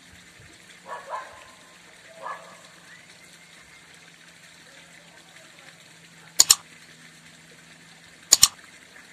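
Two mouse-click sound effects from a like-and-subscribe button animation, each a quick double click, about two seconds apart in the second half. Before them come two short faint sounds over a steady low hum.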